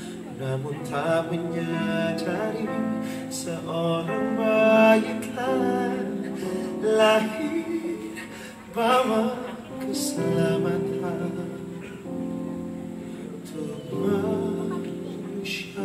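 Worship song with singing over an instrumental accompaniment of held chords.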